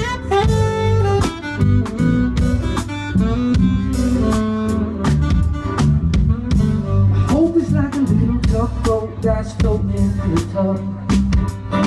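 Live band playing an instrumental break: a saxophone solo over steady drums, bass and keys.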